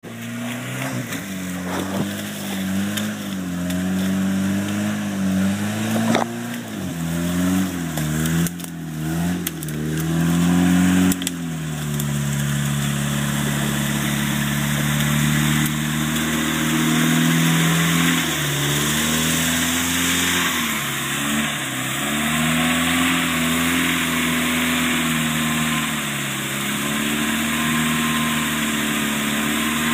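Jeep YJ's engine revving up and down as it works through deep swamp water and mud, then holding steadier revs from about twelve seconds in, over the continuous churning of water around its tyres.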